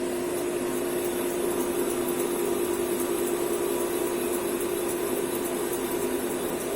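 CNC lathe running with its spindle turning: a steady machine hum with a constant tone.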